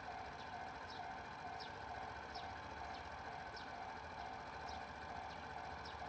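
Japanese railway level-crossing warning bell ringing in a steady repeated electronic ding, about two a second, with short high chirps over it.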